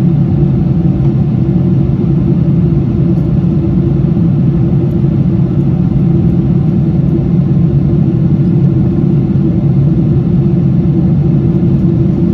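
Steady cabin noise of a Boeing 777-200 climbing out after takeoff, heard at a window seat over the wing: the engines and rushing air make one even, low drone that does not change.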